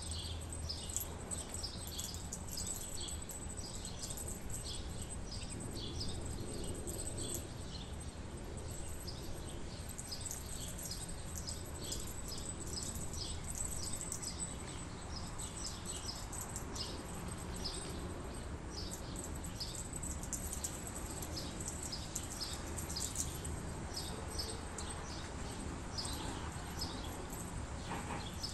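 Small birds chirping over and over in short, high calls, over a steady low background rumble.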